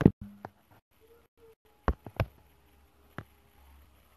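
A handful of sharp clicks or taps, the loudest right at the start and three more about two to three seconds in, with faint low sounds between them.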